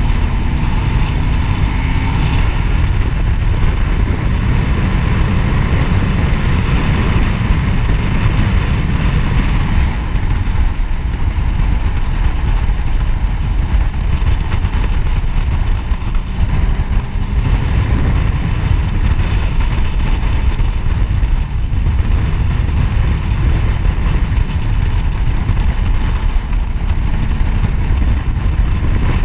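Sport motorcycle riding at road speed: a steady low rush of wind over the microphone, with the bike's engine running underneath.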